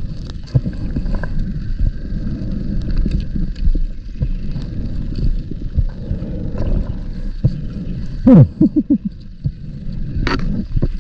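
Muffled underwater sound of a scuba diver's breathing through a regulator: a steady low rumble with faint hiss, broken a little past the middle by a loud burst of exhaled bubbles in several quick gurgles, and a shorter bubble burst near the end.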